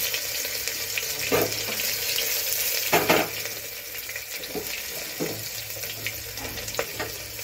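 Chopped garlic and ginger sizzling in hot mustard oil with cumin seeds in a pressure cooker pan, with a few sharp crackles, the loudest about three seconds in, after which the sizzle eases a little.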